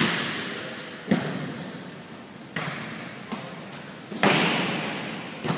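Volleyball being struck by hands during a rally: about six sharp smacks a second or so apart, each echoing in a large gym. The loudest comes about four seconds in, from an overhead hit.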